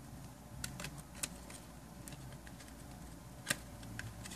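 Otterbox Commuter phone case being handled: its silicone inner sleeve pulled out of the hard plastic outer shell, giving a few light clicks and rubbing, the sharpest click about three and a half seconds in.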